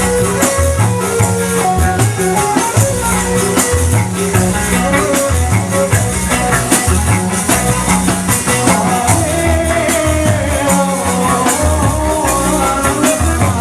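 Loud band music played through a sound system, with a steady drum beat and a melody line over it.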